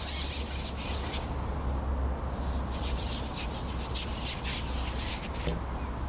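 Wind buffeting the microphone, with a steady low rumble and hissy rustling that swells and fades every second or so as the gusts come through the reeds and trees.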